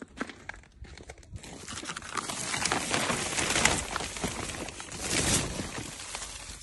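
Footsteps crunching in snow, then from about a second and a half in a continuous crinkling rustle of greenhouse plastic film that grows louder and eases off near the end.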